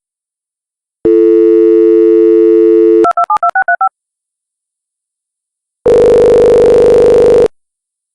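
Landline telephone tones: a steady dial tone for about two seconds, then a rapid run of touch-tone keypad beeps as a number is dialled, and after a pause of about two seconds a single ringback tone lasting about a second and a half while the call rings through.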